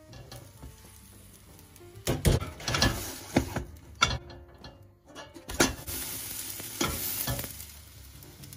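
Pan bread dough cooking in a covered frying pan: sizzling and frying noise in two stretches, with a few sharp knocks in the first.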